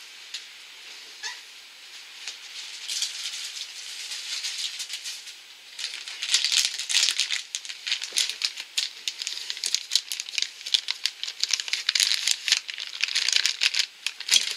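Crinkling and rustling of a soft plastic pack of makeup wipes being handled and opened, with many quick clicks and rattles. It is soft at first and turns loud and busy from about six seconds in.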